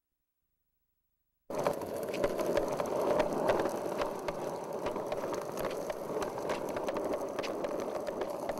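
Skateboard wheels rolling over gritty pavement: a steady rumble with frequent small clicks and ticks, starting suddenly about a second and a half in.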